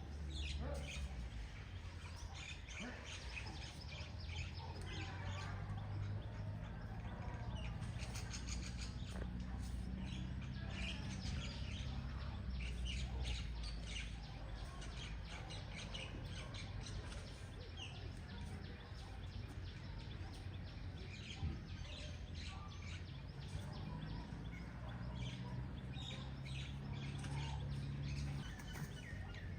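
Many small birds chirping and calling in quick, short notes, over a steady low rumble.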